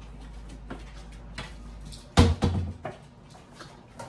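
Kitchen handling sounds: scattered light taps and footsteps, then two heavy thuds about two seconds in, the first the loudest. A low steady hum cuts off just before the thuds.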